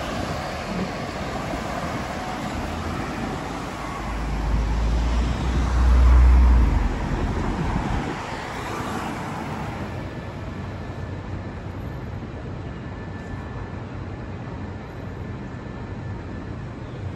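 City street traffic: cars passing on a multi-lane road as a steady wash of noise. A low rumble swells to its loudest about six seconds in and dies away by eight seconds, then the traffic goes on as a quieter, steady hum.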